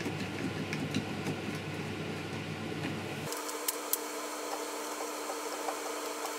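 Steady low mechanical hum with a few faint clicks; the deepest part of the hum cuts off suddenly about three seconds in.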